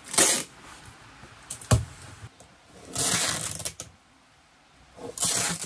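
Clear sticky tape being pulled off its roll in three noisy rasps: a short one at the start, a longer one about three seconds in, and another near the end. There is a single dull thud about a second and a half in.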